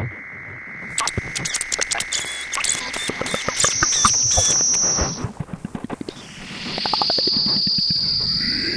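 A mix of sound effects: a steady high whine over the first few seconds, then a thick run of clicks and knocks, then a higher steady whine that holds through the second half. Together they sound insect-like, much like crickets.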